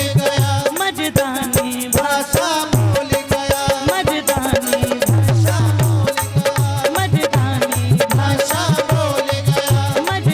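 Indian folk-style song: a singing voice over a steady drum beat with rattling percussion.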